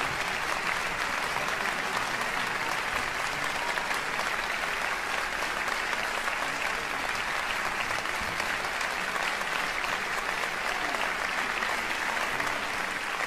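Concert audience applauding steadily in dense, sustained clapping that begins to fade out near the end.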